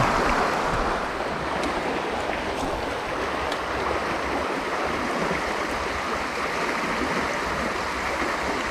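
Shallow river running over a stony bed: a steady rush of flowing water.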